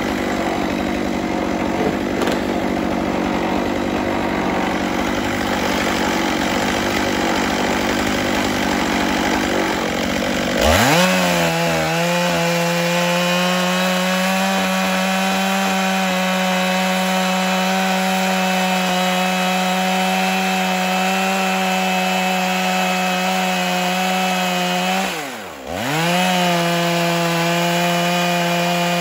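Stihl MS 661 chainsaw on a Logosol chainsaw mill, ripping lengthwise through a black walnut log at full throttle with a steady high-pitched engine note. Near the end the engine drops in pitch for about a second and comes straight back up. The first third holds a rougher, noisier running sound.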